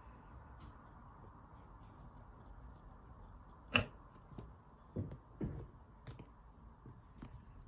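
British shorthair kittens scrambling about in a crocheted yarn basket: faint scuffs and small clicks of paws and claws, one sharp knock a little before four seconds in, then two soft thumps about a second later.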